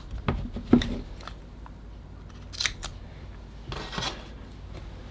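Masking tape being handled on a cast resin block: a few crisp crinkles and clicks in the first second, a short crackle about two and a half seconds in, and a longer rustle around four seconds in.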